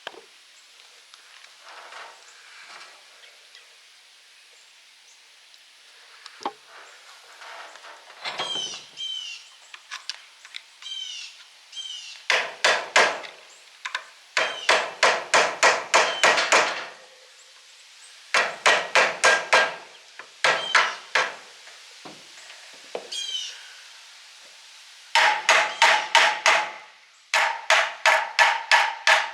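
Hammer blows on the steel of a horizontal milling machine, driving at a bearing seized on its shaft. Light, scattered taps give way about twelve seconds in to loud runs of quick blows, a few a second, each with a metallic ring.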